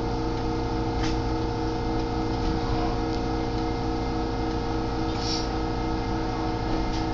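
Electric commuter train pulling out of the station, heard from inside: a steady hum with several fixed tones over a low rumble.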